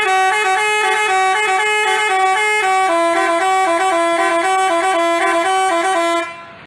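Telolet bus horn of the Basuri type playing a rapid multi-note tune, its notes switching every fraction of a second and moving lower about three seconds in. It fades out and stops just after six seconds.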